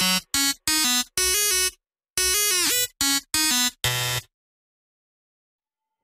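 Electronic background music: short, choppy synth phrases with bending pitch that cut in and out, stopping abruptly about four seconds in.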